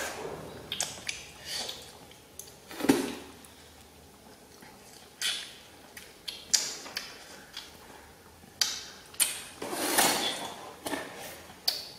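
Close-up sounds of children biting into and chewing juicy green orange slices: irregular sharp wet clicks and smacks, with a couple of louder, longer juicy bites about three seconds in and near the end.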